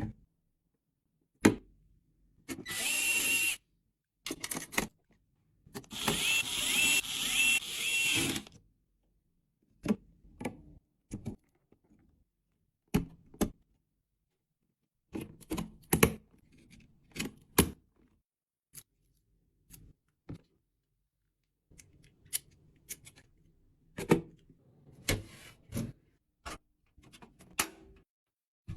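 Computer parts being handled and fitted: scattered clicks and knocks of components going into place. Twice a small power tool runs briefly, for about a second near the start and for about two seconds a little later.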